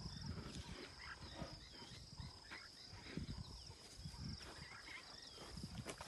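Insects trilling in a steady high chorus, with a few short chirps and low rustling bumps close to the microphone.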